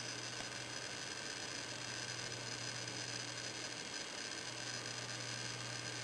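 Home-built single-ended 6V6GT tube amplifier (12AX7 driver) idling with no signal: a steady low mains hum and hiss from its speakers. The builder blames the bad noise on the switching power supply feeding its USB charging line.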